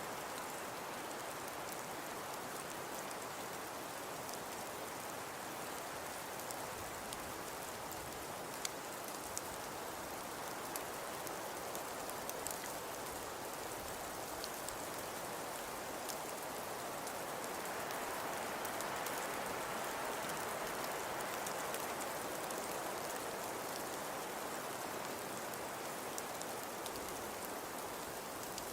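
Falling snow ambience: a steady soft hiss with scattered faint ticks, swelling a little about two-thirds of the way through.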